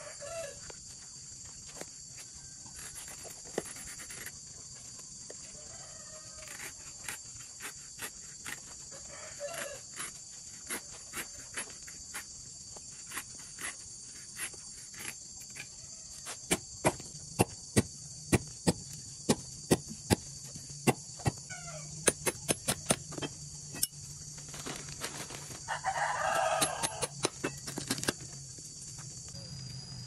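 Machete blade chopping old tyre rubber against a wooden block in sharp strikes. The strikes come in a loud run of about two a second through the second half. Chickens cluck throughout, and one gives a louder, longer call a few seconds before the end.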